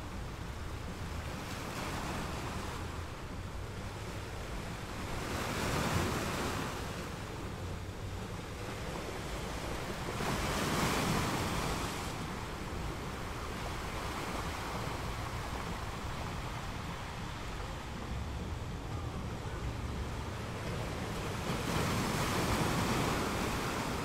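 Ocean surf: a steady wash of waves that swells louder as a wave breaks about six seconds in, again around eleven seconds, and near the end.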